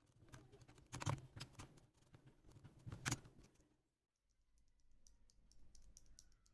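Faint plastic clicks and taps from mechanical keyboard switches and parts being worked on, with two louder clacks about two seconds apart, a short pause, then a run of quick, lighter high ticks.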